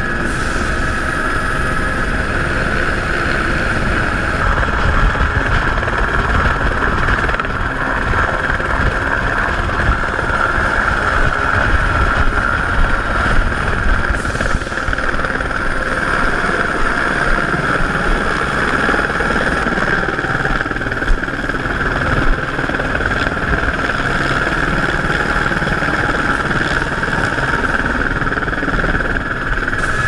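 Helicopter's turbine and rotor running steadily at close range: a constant high whine over a low rotor rumble.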